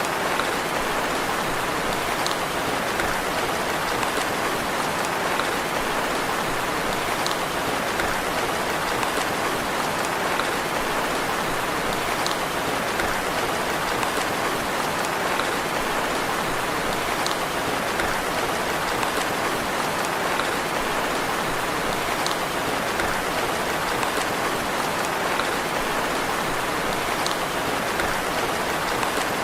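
Steady gentle rain, an even hiss of falling drops, with faint drip ticks recurring about every five seconds.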